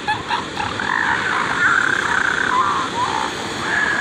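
Young northern elephant seal calling: a string of high, wavering bawls, with a short break about three seconds in before it calls again.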